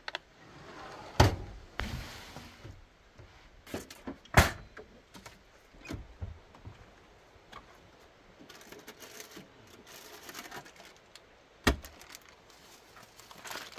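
Sharp knocks and thumps, the loudest about a second, four and a half seconds and near twelve seconds in, with rustling and lighter clatter between: someone climbing out of a truck's rooftop tent and down from the roof.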